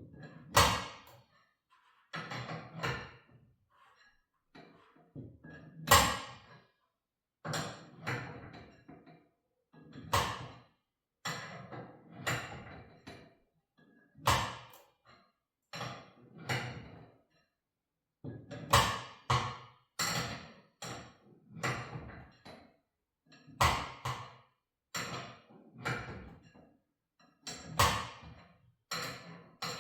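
Steel winding bars knocking in the holes of a garage door torsion spring's winding cone as the spring is wound up by hand, a quarter turn at a time: sharp metallic knocks with a short ring, roughly one a second, with a few brief pauses.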